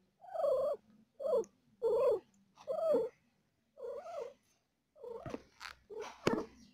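Cat crying during a birth in five short, pitched calls in a row, each rising and then falling, about one every three-quarters of a second. Near the end come softer broken calls with rustling and a few clicks.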